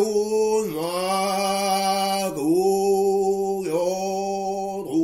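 Nichiren Buddhist chanting, one voice drawing out long syllables on a steady pitch. The syllable changes every second or so with a short slide in pitch.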